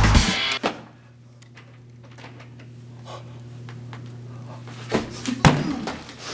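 Background music cuts off right at the start, leaving a steady low hum with a few faint scuffs. About five seconds in come two loud thuds as a wooden room door is burst open.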